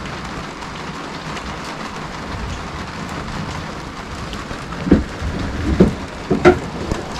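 Rain falling steadily on a sailboat, heard from inside the cabin as an even hiss. Three or four loud, dull thumps come between about five and six and a half seconds in.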